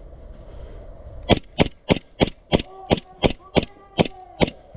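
Airsoft gun firing about ten sharp single shots in quick succession, roughly three a second, starting a little over a second in.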